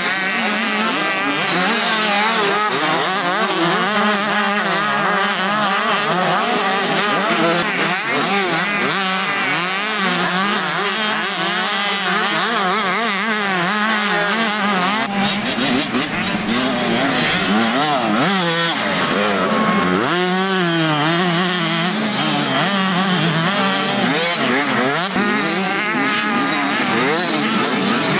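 Several motocross bikes racing, their engines revving up and down over one another in constantly shifting pitch.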